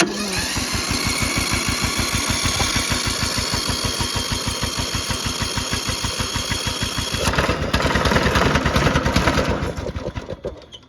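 Riding lawnmower's engine being cranked by its electric starter, a fast even chugging with a starter whine over it. About seven seconds in it gets louder and rougher, then it slows and dies away near the end without the engine starting.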